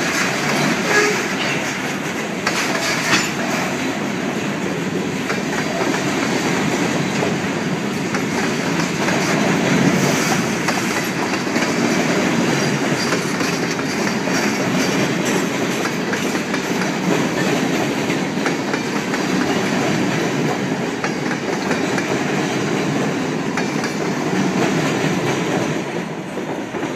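Freight train cars rolling past in a steady rumble, their wheels clacking over the rail joints, with a few sharper clacks in the first few seconds.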